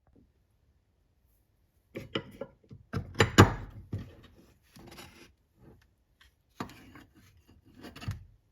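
Irregular knocks, taps and scrapes of hard objects being handled, starting about two seconds in, with the loudest knock a little past three seconds.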